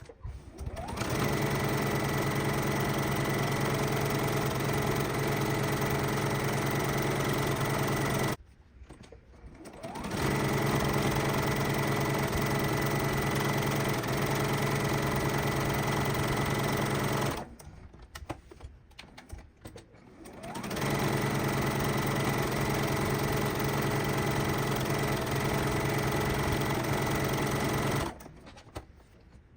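Electric sewing machine stitching at a steady speed in three runs of about seven seconds each, with a steady hum, stopping briefly twice between runs.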